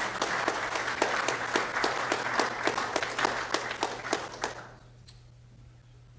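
Audience applauding; the clapping thins and dies away about five seconds in.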